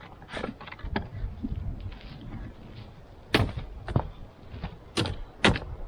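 Sharp knocks and clatters from working ice loose from a Yamaha VK540 snowmobile's track and suspension rollers, a few faint ones at first, then four louder ones in the second half.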